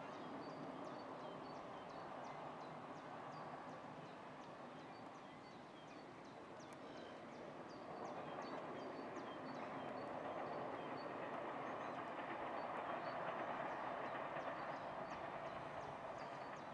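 Steady rushing outdoor background noise that swells about eight seconds in, with a faint high chirp repeating at a steady pace.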